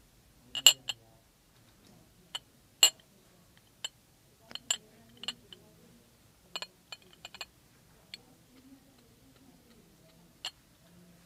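Sharp, irregular clicks and clinks of a small metal combustion chamber being set down and handled on a glass plate, about twenty in all, the loudest two near the start.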